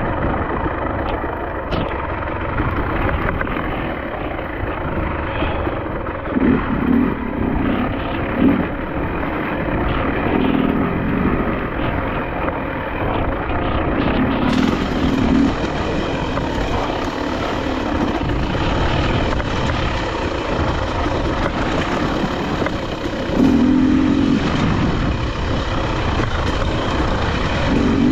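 Dirt bike engine running during a trail ride, revving up briefly several times, under heavy wind noise on the microphone.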